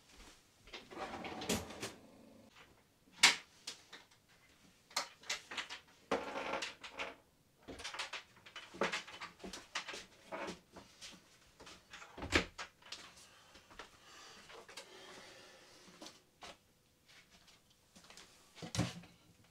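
Household handling sounds in a small room: irregular knocks and clicks of cupboard doors, drawers and things being set down on a kitchen counter, with a few stretches of rustling. The sharpest knocks come about three seconds and about twelve seconds in.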